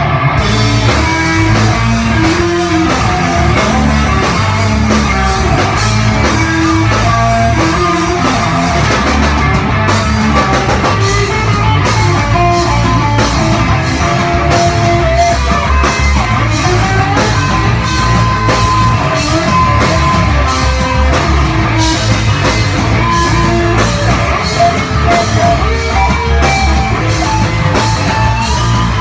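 A live rock band playing loud, with electric guitar and a drum kit.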